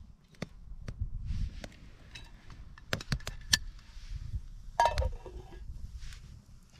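Metal camping pot and lid clinking: a series of light clicks and knocks, then a brief ringing clank about five seconds in as the lid is set onto the pot, over a low rumble.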